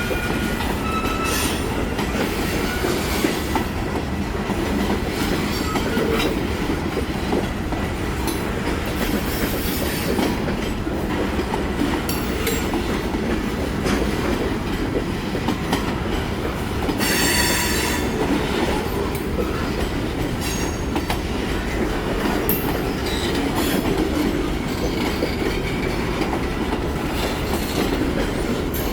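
Freight train cars rolling past on the rails: a steady rumble with clicks from the wheels and several brief wheel squeals, the loudest about seventeen seconds in.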